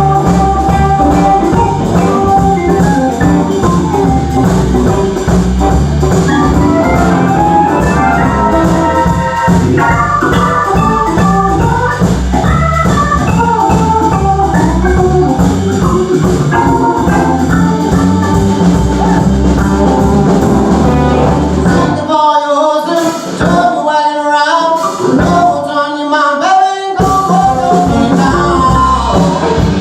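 Live band playing a jam at full volume with a steady beat. About 22 seconds in, the bass and beat drop out for about five seconds, leaving a single wavering melodic line, and then the full band comes back in.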